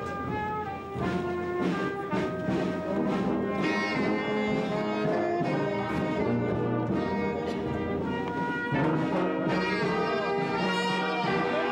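Brass band playing, trumpets and trombones holding notes together in chords as the melody moves on.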